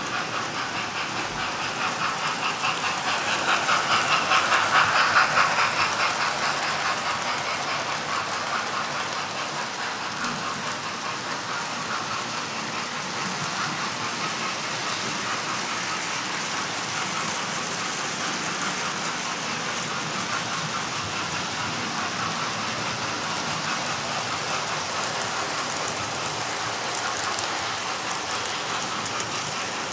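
Several model trains running together on a multi-track layout: a steady rattle with fine rapid clicking of small wheels over the track. It swells louder about four to five seconds in, as a train comes close.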